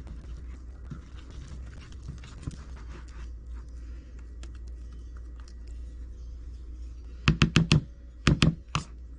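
Metal spoon stirring and scraping through a thick flour-and-water sourdough starter mix in a plastic tub, over a steady low hum. Near the end come two quick clusters of sharp knocks.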